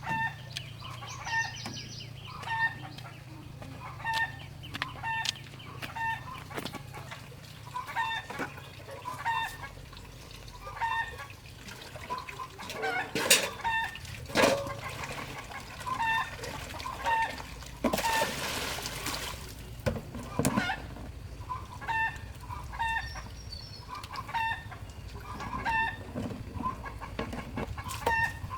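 Chickens clucking over and over, short pitched calls about once a second, with a few sharp knocks around the middle and a brief rushing noise about two-thirds in.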